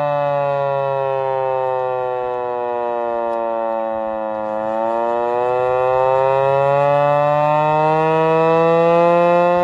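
Vixen Horns VXS-1200M hand-crank tornado siren wailing. Its pitch falls for about four seconds, then rises again as the crank is worked back up to speed.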